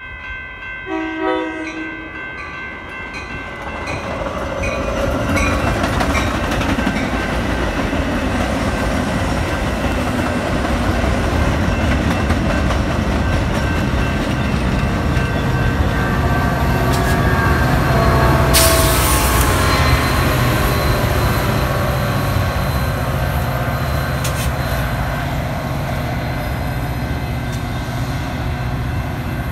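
Metra commuter train passing close by: a horn and crossing bells sound at the start, then a steady rumble and clatter of the bilevel passenger cars going by, with a brief hiss about two-thirds of the way through. Near the end comes the deep engine hum of the EMD F40PH diesel locomotive pushing at the rear.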